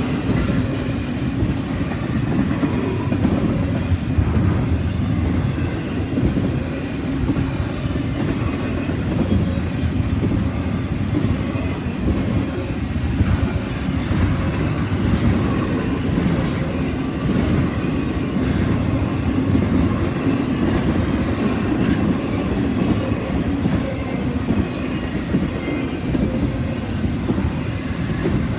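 Norfolk Southern freight train rolling past at steady speed, its wheels rumbling and clicking over the rails.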